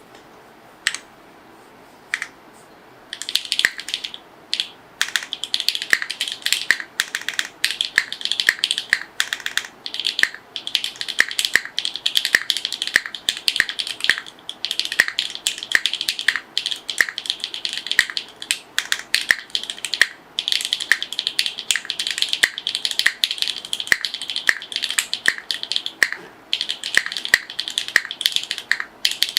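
Typing on a custom mechanical keyboard, a Rubrehaku Cream with hand-lubed HMX Hazelnut switches and GMK Cherry-profile keycaps. Two single keystrokes come first, then about three seconds in it becomes steady fast typing with only short pauses.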